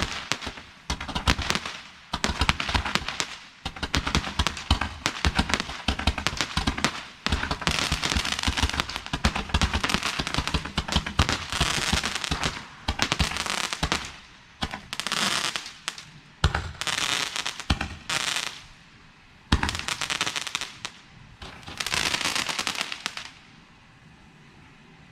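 A rack of Roman candles firing together: a dense run of sharp pops, reports and crackling, thinning into separate bursts and dying out about 23 seconds in.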